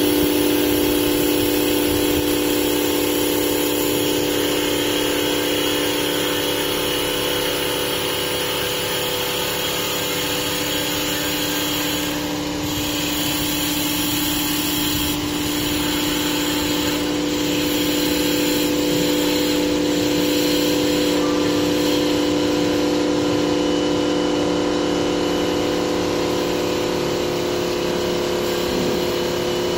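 Small auto-feeding CNC wood-turning lathe running and cutting a wooden workpiece: a steady machine hum with several held mid-pitched tones under a hiss of cutting. The sound dips briefly about twelve seconds in.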